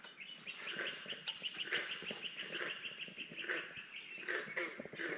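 A bird calling: a rapid even trill of short high chirps, about eight a second, lasting two to three seconds, with a few other scattered bird chirps after it.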